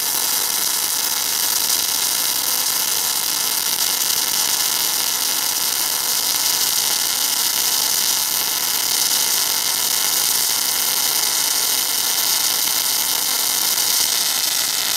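MIG/MAG welding arc from a semi-automatic welder crackling steadily as it lays a continuous fillet weld, the machine set to a high wire feed and high current for a thick 10 mm bead.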